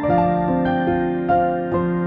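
Background music: a gentle keyboard melody, piano-like, with notes changing every few tenths of a second over sustained lower tones.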